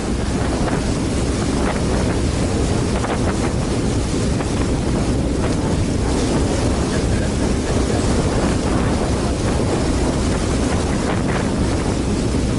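JR West Miyajima ferry under way at cruising speed: a steady low hum from the boat with wind buffeting the microphone and water rushing past the hull.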